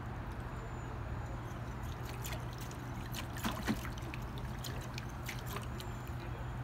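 Hot tub water trickling and lapping, with small splashes from feet moving on the submerged step, the loudest about three and a half seconds in, over a steady low hum.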